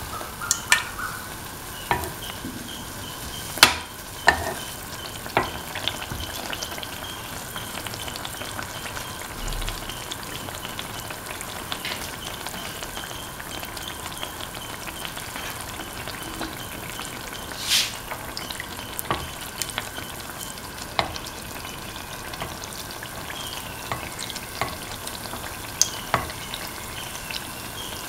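Semolina pancake batter shallow-frying in hot oil in a pan: a steady sizzle broken by scattered sharp pops and clicks every second or two.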